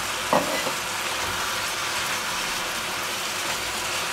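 Strips of pork and sliced onions sizzling steadily in hot oil in a frying pan while a wooden spatula stirs them, with one short scrape shortly after the start.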